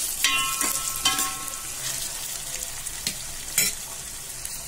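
Vegetables sizzling in oil in a stainless-steel pot while a steel ladle stirs them, scraping against the pot. The ladle knocks on the pot three times, the first two knocks ringing briefly.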